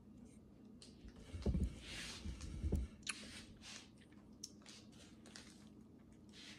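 Someone chewing crunchy potato chips close to the microphone: irregular short crunches, with a few heavier low bumps about one and a half to three seconds in.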